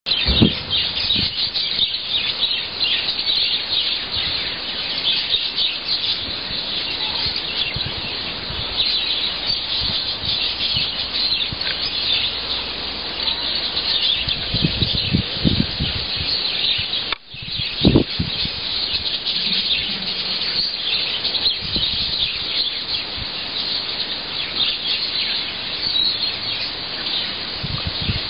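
Steady, dense chirping of birds, with a few low thumps midway and a momentary drop-out about two-thirds of the way through.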